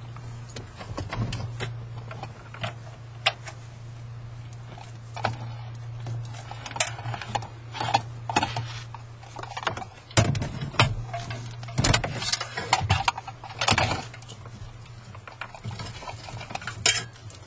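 Clicks, rattles and knocks of plastic wiring connectors and a T-harness being handled and plugged together behind a car stereo, the loudest knocks a little past the middle, over a steady low hum.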